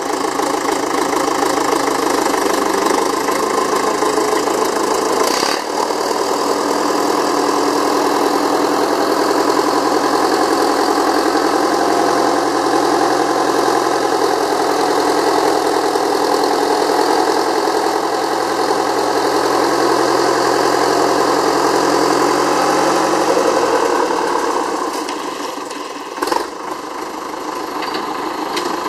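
Diesel engine running steadily, getting quieter for the last few seconds, with a sharp knock near the end.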